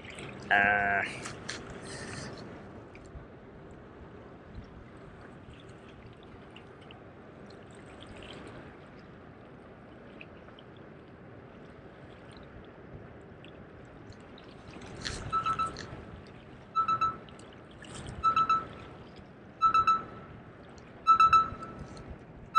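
Water lapping and trickling among the rocks of a jetty, with a short pitched sound and a few clicks near the start. From about two-thirds of the way in, a short high beep sounds six times at even intervals of about a second and a half, louder than the water.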